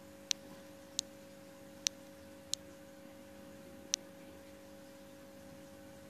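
Aquarium air-driven filter running, a steady low hum with five short, sharp high ticks in the first four seconds.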